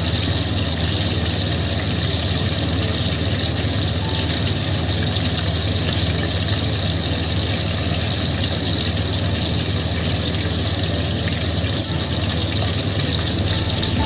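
Steady hum and hiss of a lit gas stove burner under a wok of heating oil, unchanging throughout.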